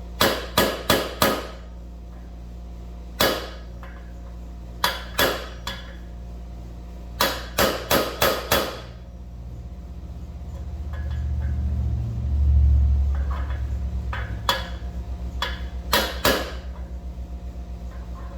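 Hammer blows on a metal driver, tapping a new wheel bearing into a motorcycle's front wheel hub by its outer race. The strikes come in quick bunches of three to five with pauses between, and a low rumble swells up briefly in the middle.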